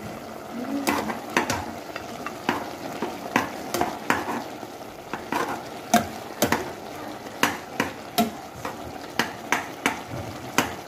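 A metal spoon stirring seasoned pieces of cow foot and cow head in a large aluminium pot, knocking and scraping against the pot in irregular clinks, about two a second, over a steady sizzle from the pot.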